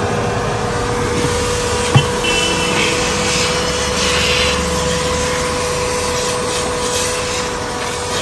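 Rubbing and scraping as floor-mat material is worked into a car's interior, over a steady motor hum, with one sharp click about two seconds in.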